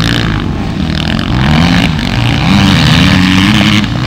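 Motocross dirt bike engines revving hard, the pitch climbing and dropping over and over as the riders open the throttle and shift. Loudest in the second half, with a brief drop just before the end.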